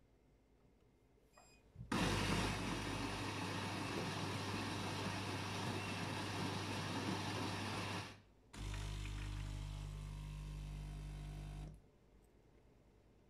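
Siemens EQ.500 integral bean-to-cup coffee machine running through a brew: its grinder runs loudly for about six seconds, then after a short pause its pump hums steadily for about three seconds and cuts off.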